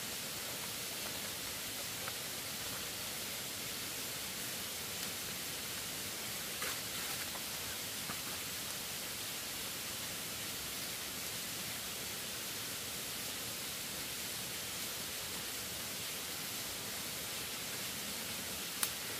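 Steady, even hiss with a few faint clicks or taps, the sharpest shortly before the end.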